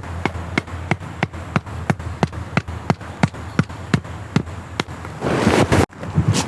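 A steady series of sharp knocks, about three a second, then a burst of rustling near the end that breaks off suddenly.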